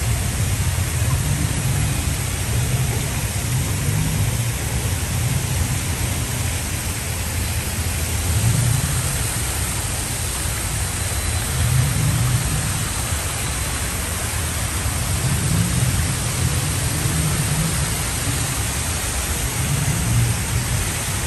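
Steady rushing hiss of water cascading down a fountain's water walls, with a low rumble underneath that swells and fades every couple of seconds.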